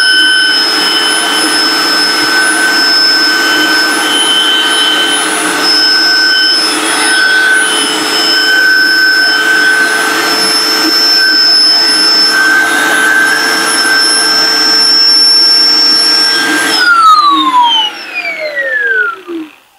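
Magtek angle grinder, rated 12,000 RPM, driving a snail-shell blower adapter in suction mode, running with a steady high whine as it sucks sawdust up its pipe. About 17 seconds in it is switched off and the whine falls in pitch as it spins down to a stop.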